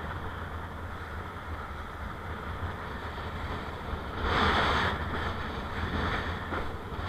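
Strong wind buffeting the camera's microphone in a low, steady rumble while a kiteboard skims through whitewater, with a louder rush of water and spray about four seconds in.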